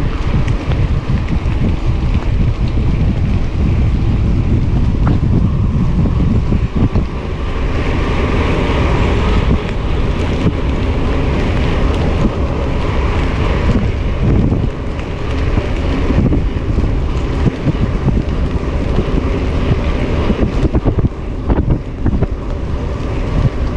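Wind buffeting the microphone of a camera riding along on a mountain bike, a loud steady rumble with scattered knocks and rattles.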